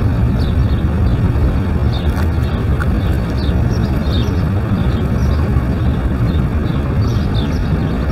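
Fast-flowing river water rushing over rapids, a loud steady rumbling wash. A few short high chirps of small birds come and go.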